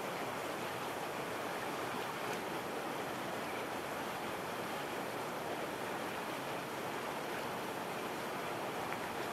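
Steady, even rushing noise of wind and small waves on a lake.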